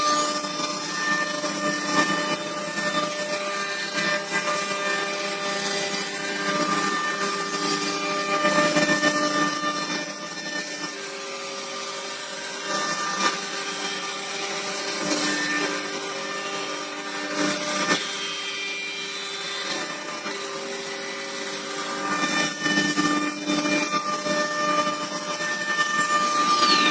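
CNC router spindle running with a steady high whine, its tones shifting in places as the machine works, then winding down near the end.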